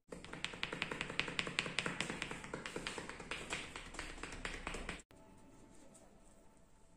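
Hair cracking during a head massage: a quick run of sharp snapping clicks, about four to five a second, as tufts of hair are pulled and snapped between the fingers. It cuts off suddenly about five seconds in.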